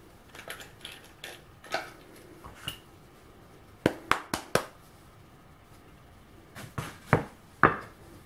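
Workpieces being handled on the bench: a plywood board and a metal doweling jig set down and moved about, giving light clicks and rattles at first, then a quick run of four sharp knocks about four seconds in and four more near the end.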